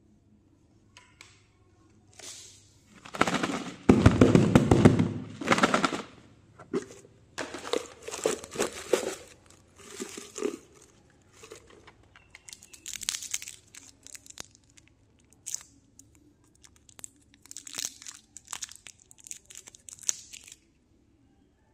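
Plastic candy wrappers crinkling and rustling in irregular bursts as a hand rummages through a jar of individually wrapped candies, loudest a few seconds in. Later, shorter crinkles as a candy's wrapper is handled and peeled open.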